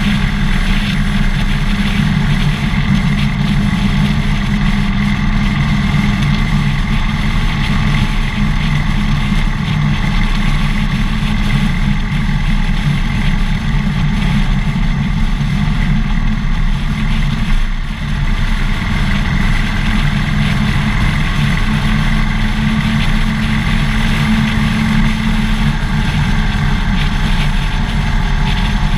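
Harley-Davidson Dyna Fat Bob's V-twin engine running steadily, heard close up from a camera mounted on the motorcycle, with a brief drop in level about 18 seconds in.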